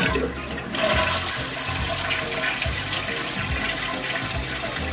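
Toilet flushing: the tank, newly fitted with a Fluidmaster flush valve and fill valve, empties into the bowl in a steady rush of water that starts under a second in. This is the first test flush after the repair.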